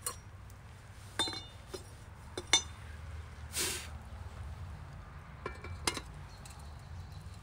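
Metal parts of a fire-heated samovar clinking and briefly ringing as they are handled: a few sharp knocks about a second in and near the middle, and two more near the end as a chimney pipe is set onto the samovar. There is a short rushing noise midway.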